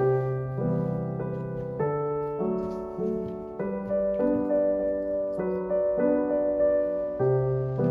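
Background music: a gentle solo piano piece playing slow, sustained chords that change about once a second.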